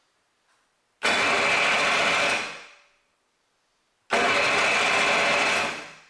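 The electric starter motor of a 1988 Yamaha Wavejammer personal watercraft, wired straight to a battery with jumper cables, cranks the engine over twice, each time for about a second and a half. Each run starts sharply and winds down when the power is taken off. The starter spins strongly: it is good, and the no-start fault lies elsewhere in the starting circuit.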